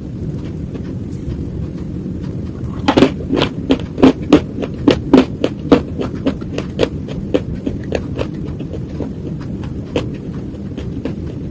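Close-up mouth crunching of slate, a quick run of sharp, brittle crunches about two a second that starts a few seconds in and fades, with one more crunch near the end, over a steady low hum.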